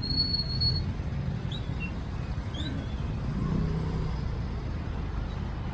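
Steady low rumble of slow-moving road traffic, with a brief high-pitched tone in the first second and a few faint short chirps.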